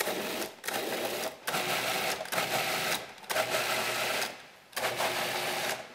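Food processor motor run in a series of short pulses, each under a second with brief pauses between, its blade chopping tomatoes, garlic and basil in the bowl.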